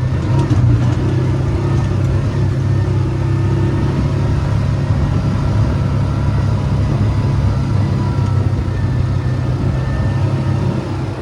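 ATV engine running steadily while riding, a continuous low drone with slight rises in revs.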